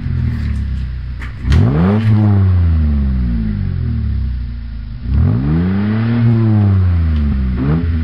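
Car engine idling and revving up and back down twice, about a second and a half in and again about five seconds in, with a few quick blips near the end.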